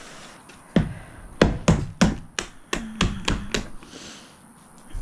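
About nine sharp clicks and knocks in quick succession over roughly three seconds, a hard plastic hand tool clacking against a plastic plant pot as it is worked at the rim. Some knocks leave a brief low ring.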